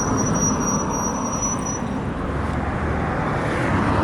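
Road and traffic noise heard while riding a bicycle through town streets, with a steady low rumble. A thin, high, steady whine sounds for about the first two seconds, then stops.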